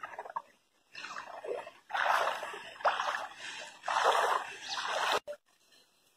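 Muddy floodwater splashing and sloshing in a few bursts roughly a second apart, stopping suddenly near the end.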